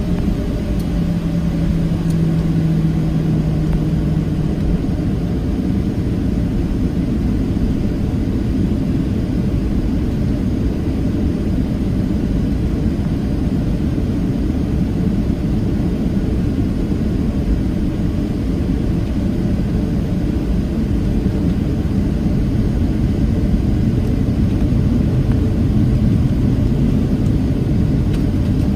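Cabin noise of a Boeing 737-700 with its CFM56-7B jet engines running: a steady, loud low rumble, with a low hum that fades out within the first few seconds.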